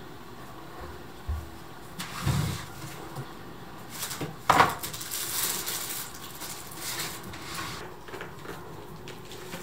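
Household handling sounds: a few soft knocks and thumps, a louder sharp clack about four and a half seconds in, then a few seconds of rustling.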